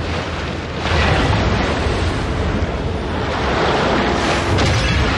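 Film sound effects of water surging and bursting over a deep rumble, swelling sharply about a second in and again near four seconds.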